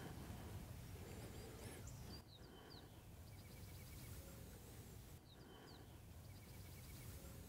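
Faint songbird song over a low outdoor background hush: short downward-slurred whistles followed by a quick run of chirps, heard twice.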